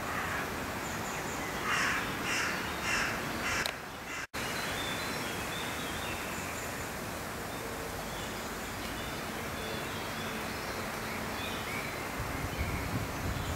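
A crow caws four times in quick succession, about half a second apart. Afterwards there is a steady outdoor hiss with faint small-bird chirps, and near the end a low rumble of wind on the microphone.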